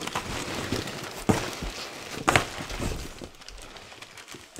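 Polystyrene packing peanuts and clear plastic product bags rustling and crinkling as hands rummage through a cardboard box, with two sharp clicks, the louder a little over two seconds in. The rustling dies down near the end.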